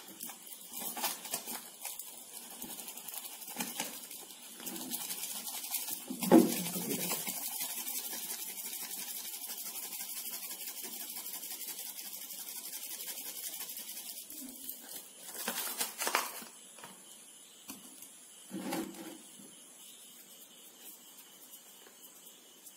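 Cornflour poured from a cardboard box into a glass bowl: a soft steady hiss of falling powder, with rustling of the box and scattered knocks against the bowl, one sharp knock about six seconds in.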